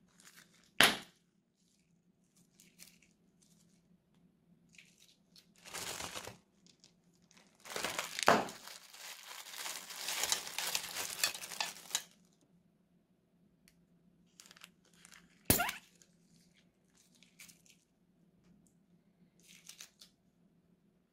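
Thin plastic bags crinkling and rustling as they are handled and opened, with about four seconds of continuous crinkling in the middle and two sharp snaps, one about a second in and one about two-thirds of the way through.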